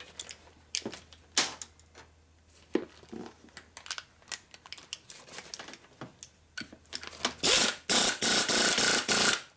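Air impact wrench hammering for about two seconds near the end, running down the nut on a Harley generator armature shaft. Before it come light clicks and clatter of tools and parts being handled.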